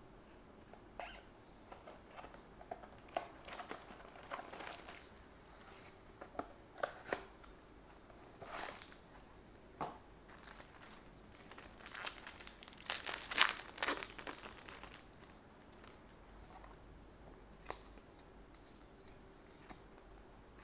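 A trading-card booster box and booster pack being opened by hand: short rustles and crackles of cardboard and the pack's wrapper, with a stretch of crinkling and tearing about two thirds of the way through as the wrapper is torn open.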